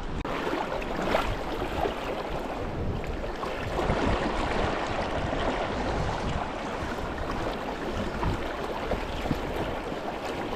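Creek water flowing, a steady rushing.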